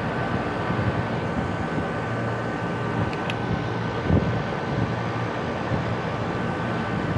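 Rooftop air-conditioning equipment running: a steady mechanical hum with a thin, high, steady whine over it. A faint click a little past three seconds and a short thump about four seconds in.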